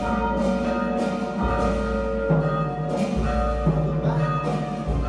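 Church bells tolling a funeral knell: several large bells struck in turn, a new stroke about every second, each ringing on long so that the tones overlap.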